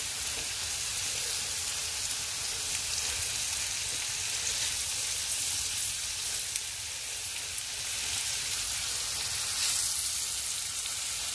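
Zucchini spirals sizzling in olive oil and chicken drippings in a frying pan: a steady frying hiss.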